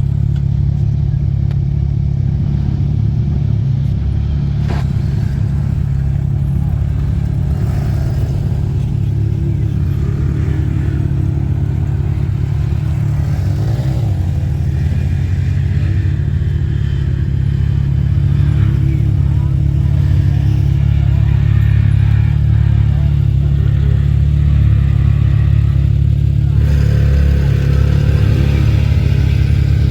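ATV engine running steadily under way, its note wavering slightly and getting a little louder in the second half.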